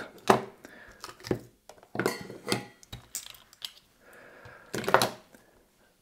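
Swiss Army pocket knives and their leather pouches being picked up and set down on a table mat: several irregular knocks and clacks, with light shuffling between them.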